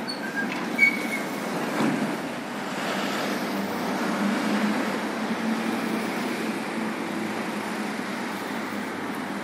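Road traffic: a steady rumble of passing vehicles' engines and tyres that swells for a few seconds in the middle. A few short high-pitched chirps and a sharp knock come in the first two seconds.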